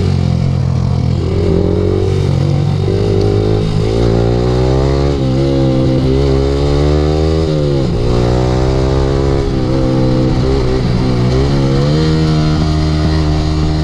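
Yamaha R15 V3 single-cylinder engine through an aftermarket Akrapovic exhaust, ridden under throttle. The revs climb steadily for a few seconds, drop sharply about eight seconds in, then rise and fall several times as the throttle is worked through corners.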